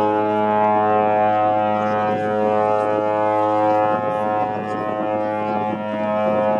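Horn of the cruise ship Mein Schiff 4 sounding one long, low, steady blast that cuts off sharply near the end.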